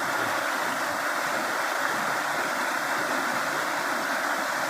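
Waterfall water rushing and splashing in a steady, unbroken hiss.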